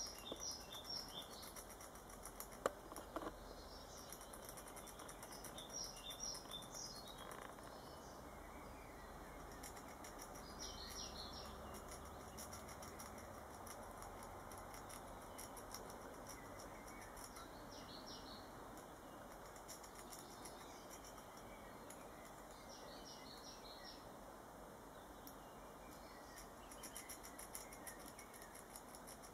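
Faint rapid scraping of a Eurasian red squirrel gnawing a bone, with small birds chirping in short bursts every few seconds. Two sharp clicks come just under three seconds in.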